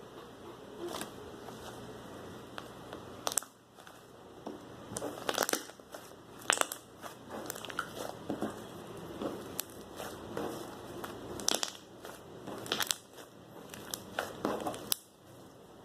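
Glitter slime being squeezed and worked by hand, giving irregular sharp pops and crackles, with several louder snaps from about five seconds in.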